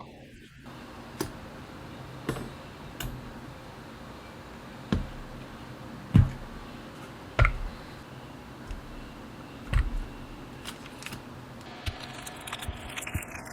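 Irregular small clicks and taps of tiny metal Mill-Max sockets and tweezers being handled against a keyboard PCB on a work surface, with a few louder knocks and a quick run of taps near the end.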